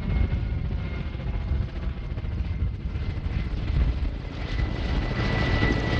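Firefighting helicopter flying nearby: a loud, steady rotor and engine rumble with a thin high whine that grows stronger toward the end.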